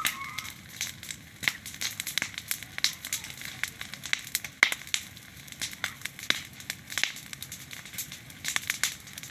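Wood fire of branches and firewood crackling, with frequent irregular sharp pops; the loudest pop comes about four and a half seconds in.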